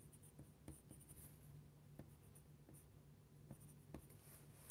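Pencil faintly scratching on paper in short strokes as small numbers are written, over a steady low hum.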